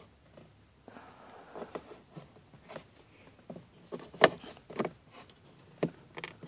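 Scattered clicks and knocks of hard plastic dash trim being handled as a car's glove box is fitted back onto its lower pivot. The loudest knock comes a little past halfway, with another near the end.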